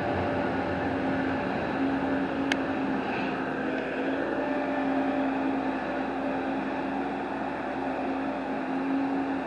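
A motor running steadily, a constant humming drone that holds level throughout, with one faint click about two and a half seconds in.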